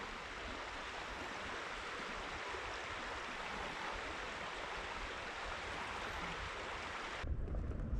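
Steady rush of flowing river water. Near the end it cuts off suddenly and gives way to low wind buffeting on the microphone.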